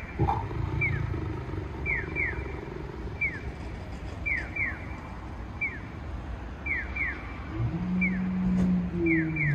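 Animatronic dinosaur's recorded roar: a low, held call near the end that rises as it finishes, over a steady repeating electronic chirp, one chirp then two, about once a second, typical of a Japanese pedestrian crossing signal, and traffic.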